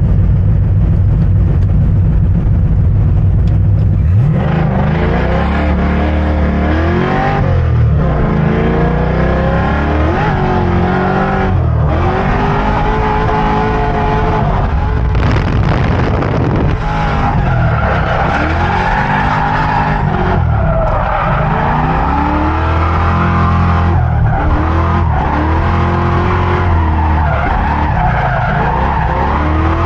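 Ford Mustang engine revving hard on a race track. From about four seconds in, the pitch climbs and drops back again and again as it is run up through the gears and lifted off for corners.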